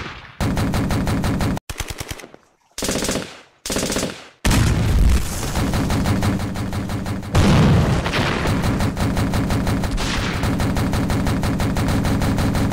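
Machine-gun fire sound effect: rapid automatic shots in a few short bursts over the first four seconds, then one long unbroken burst.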